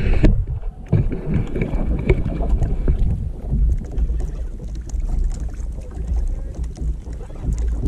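Wind rumbling on the microphone, with water slapping against a pedal kayak's hull and scattered small knocks.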